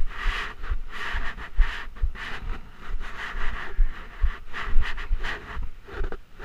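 A rider's breathing right at a chest-mounted camera, with short noisy breaths coming about two to three a second, along with clothing rubbing and low thumps against the camera housing.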